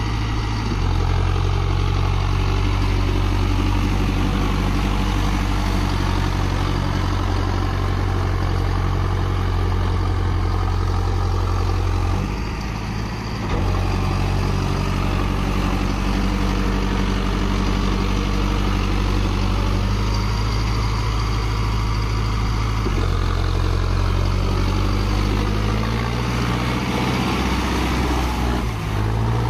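Mahindra Arjun Novo 605 DI-i 4WD tractor's diesel engine running steadily under load as it drags a trolley through deep mud. The engine note shifts a few times and rises near the end as it revs up.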